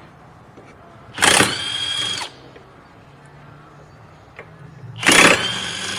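Electric impact wrench loosening the 14 mm bolts that hold a rear wheel hub bearing assembly: two bursts of about a second each, each starting with a loud hit and running on with a steady high whine.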